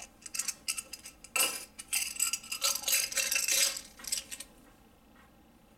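Collapsible shot glasses being pushed back together and handled: a string of light clicks and rattles, densest in the middle, dying away about four seconds in.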